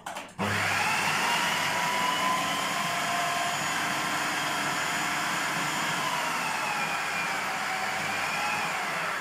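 Electric blender motor running, grinding soaked fava beans with greens and onion into ta'ameya (falafel) paste. It switches on about half a second in and runs as a steady whine whose pitch wavers a little as the load shifts.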